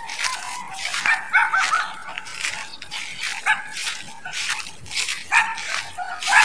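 Short animal calls repeated throughout, several of them gliding upward in pitch, mixed with frequent sharp clicks.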